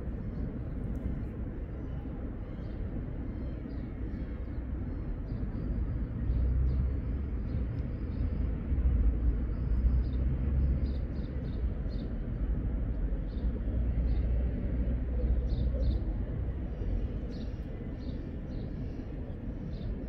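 Low outdoor rumble that swells louder in the middle and eases off near the end, with faint short ticks over it.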